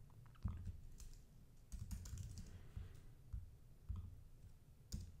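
Faint computer keyboard typing and mouse clicks: scattered single taps and clicks, a little under one a second, the sharpest one near the end.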